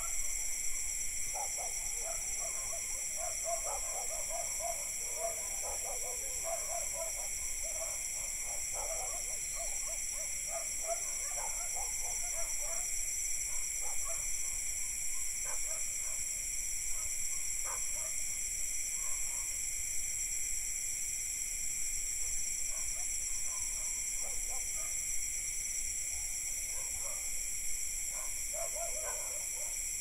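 Night insect chorus of crickets and cicadas: a steady, high-pitched, many-layered trilling. Distant dogs bark on and off over it, mostly in the first half and again near the end.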